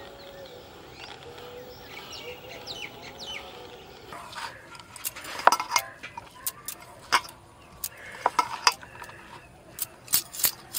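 Faint bird chirps for the first few seconds, then hands mixing grated white radish in a stainless steel bowl, with a string of sharp clinks against the metal.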